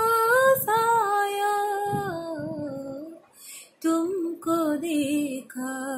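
A woman singing a Hindi ghazal alone. She holds a long note that sways in pitch for about three seconds, breaks off briefly, then starts the next line.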